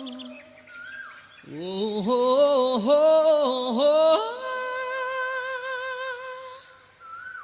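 Background music from a Tamil song: a melody line glides through a short phrase, then holds one long steady note for about two and a half seconds before fading near the end.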